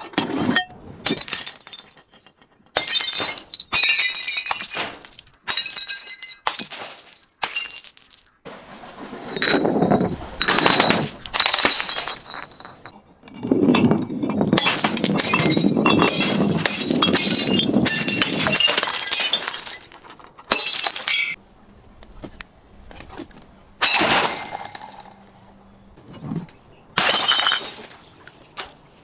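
Glass bottles breaking and being crushed: a run of sharp cracks and crunches, with a long unbroken stretch of crunching about halfway through.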